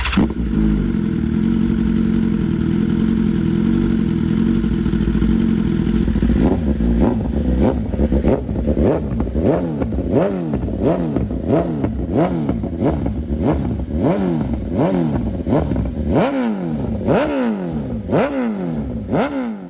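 BMW S1000RR inline-four engine breathing through an Arrow Competition Low titanium-and-steel full exhaust, idling steadily for about six seconds, then revved in short throttle blips about once a second, each one rising and falling quickly in pitch.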